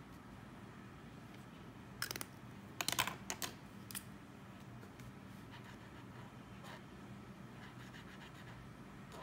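A quick cluster of small, sharp clicks and taps about two to four seconds in, like a pen or other small object being handled on a desk, over a faint steady hum. Fainter scattered ticks follow.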